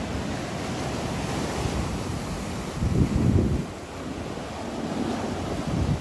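Sea waves washing in with wind on the microphone, and louder low rumbles about three seconds in and again near the end.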